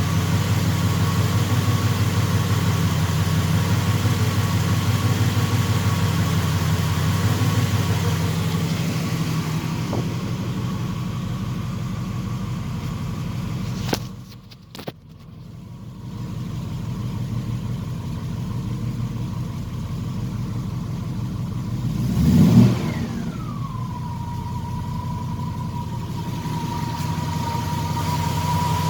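Triumph Stag 3.0-litre V8, freshly rebuilt, idling steadily and blipped once about two-thirds of the way through. Straight after the rev a high whine comes in, falling in pitch as the revs drop and then holding steady: the strange noise the owner finds starts once the engine is revved to put out the ignition warning light.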